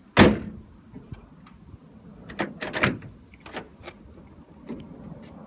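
Honda Ridgeline dual-action tailgate slammed shut just after the start, then several sharp latch and handle clicks midway, and a second slam at the very end; the latch now catches and releases properly after the repair.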